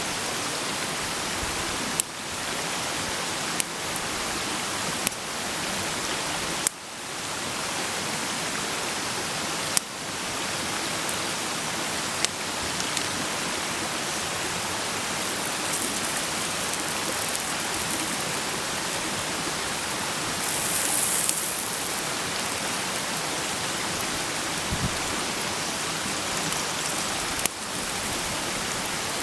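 Food frying in a pan over a campfire: a steady sizzling hiss, with sharp pops every few seconds.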